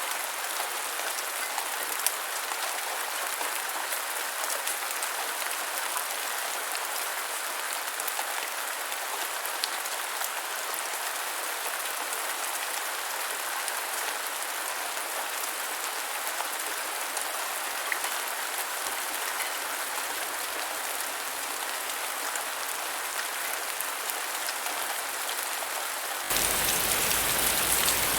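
Steady rain falling, with scattered ticks of individual drops. About two seconds before the end it switches abruptly to louder, deeper-sounding rain as a different recording begins.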